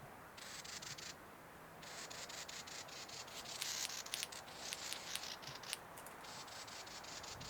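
Cape batis calling: rapid, dry clicking rattles in four bursts, high in pitch, the longest in the middle.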